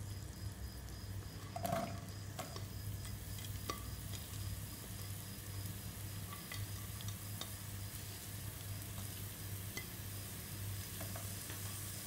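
Sliced onions sizzling steadily in hot coconut oil in a nonstick pot, with a light tap about two seconds in and a few faint ticks.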